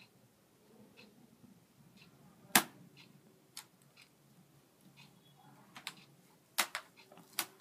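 Laptop lid snapping shut with one sharp click about two and a half seconds in, then a cluster of three more sharp clicks and knocks near the end, with faint small ticks between.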